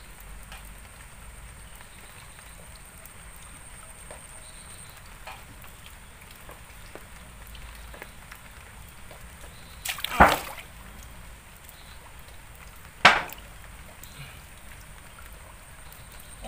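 Shallow muddy water slapping and splashing twice, sharply and briefly, about three seconds apart in the second half, over a quiet background of small drips and ticks.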